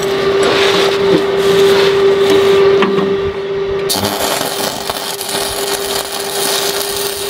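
Arc welding a steel anode-mounting bolt onto a steel boat hull: an even crackling hiss sets in about four seconds in, over a steady hum.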